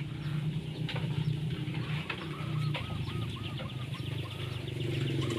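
Chickens clucking in quick short runs, over a steady low hum.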